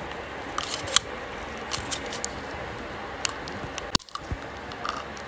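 Small hollow snowman ornament, already broken open, being squeezed in a hand: scattered faint crackles and clicks, with a sharper click about a second in and another near four seconds.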